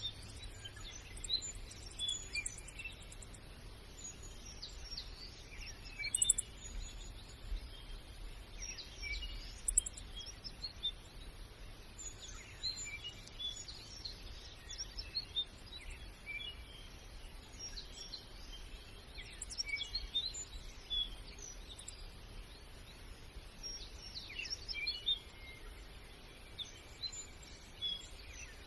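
Small birds chirping in scattered bursts of short, quick calls, over a low steady background rumble.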